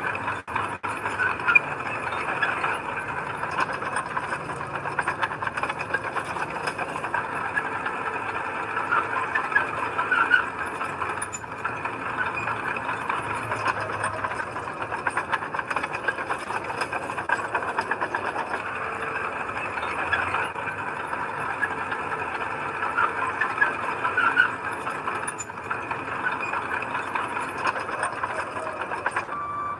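Heavy earthmoving machinery working: steady diesel engine noise with metallic squealing and rattling, like steel crawler tracks and blade linkage under load.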